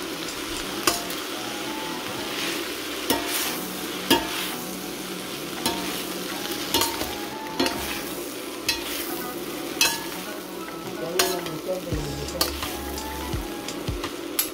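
Egg noodles and vegetables sizzling in a stainless steel pan while being stir-fried. Metal utensils scrape and clink against the pan again and again, some knocks ringing briefly.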